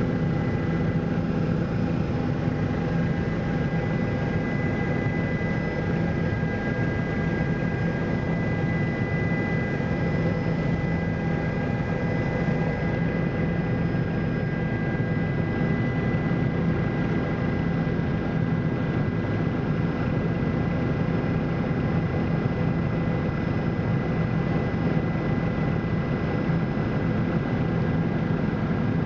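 Helicopter in flight, heard from on board: a steady low drone of engine and rotors with a thin, steady high whine over it.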